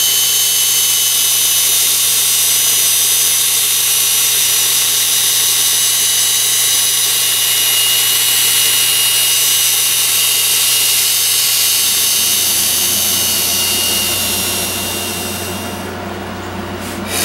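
Cordless drill motor running steadily at high speed with a high whine. It stops about fifteen seconds in, leaving a lower hum, and there is a short click near the end.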